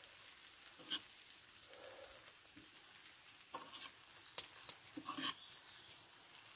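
Rice and vegetables sizzling faintly in a frying pan on a wood-burning stove, with a spoon stirring through them: a few short scrapes and knocks against the pan, most marked around one second in and again from three and a half to five seconds in.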